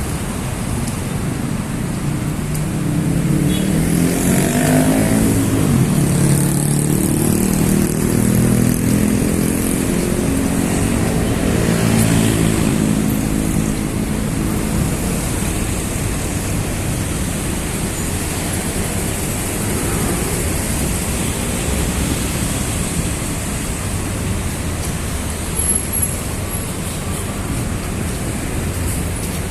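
Steady city road traffic. A vehicle engine passes close by for about ten seconds in the first half, its pitch shifting up and down as it goes, louder than the rest of the traffic.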